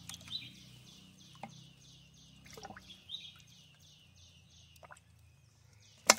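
Faint high-pitched chirping from an animal, repeated evenly about three times a second, with a few light knocks in between.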